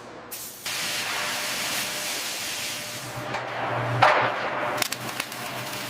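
Steady hissing noise that starts sharply just under a second in. A low hum joins about three seconds in, and several sharp clicks come near the end.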